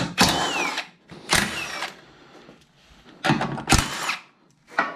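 Cordless electric ratchet (Milwaukee M12) running in four short bursts, its motor pitch sweeping up and falling away each time, as it spins off the 13 mm nuts holding the MINI's modular front end.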